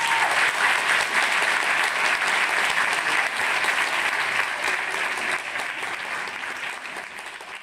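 Audience applauding, a dense steady clapping that gradually fades out over the last few seconds.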